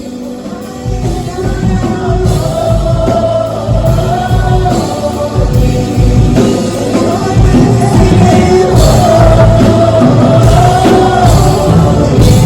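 Music with a singing voice carrying the melody over a steady beat, swelling louder through the first several seconds.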